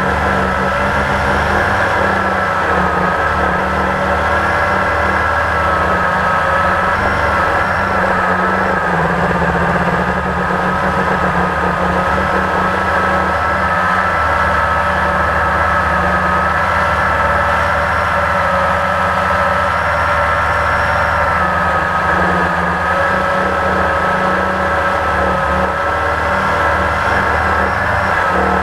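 Blade 350 QX quadcopter's electric motors and propellers whirring steadily in flight, a high whine that wavers slightly in pitch over a low rumble, heard from the GoPro mounted on the quadcopter.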